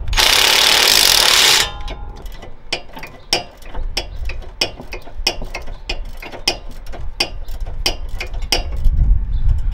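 Cordless impact wrench hammering a bolt at the coilover's lower mount in one loud burst of about a second and a half. Then a steady run of sharp mechanical clicks follows, about three a second.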